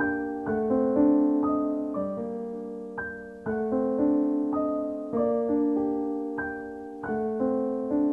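Slow, gentle solo piano music: soft notes and chords struck every half second to a second, each left to ring and fade.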